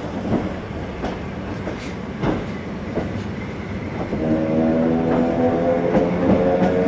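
ED2T electric suburban train running, heard from inside the carriage: wheels clack over rail joints under a steady rumble. From about four seconds in, a louder steady chord of several tones comes in and holds.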